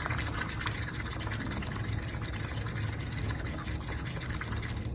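Air blown through a drinking straw into a glass of water, a steady bubbling that stops abruptly near the end. It is a blow-out bubble breathing exercise for the lungs.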